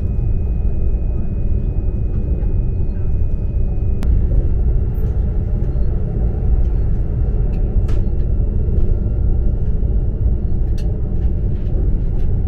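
DB ICE 3 high-speed train running at speed, heard inside the passenger cabin: a steady low rumble with a thin high whine that shifts to a different pitch about four seconds in.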